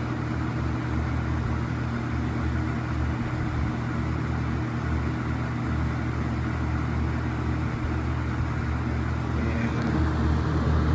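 Vintage Coast-Air box fan running steadily on high speed: a rush of air over a low motor hum, with little vibration.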